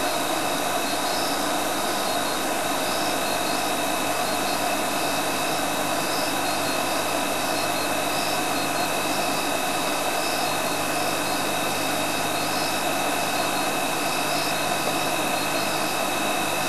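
Game-drive vehicle's engine idling: a steady rushing noise with a low hum. A faint high chirp repeats about once a second over it.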